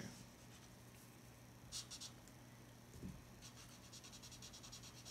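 Faint scratching of a marker nib on paper: two short strokes about two seconds in, then a run of quick back-and-forth strokes, about eight a second, near the end, blending a grey tone over the shading. A soft low knock comes about three seconds in.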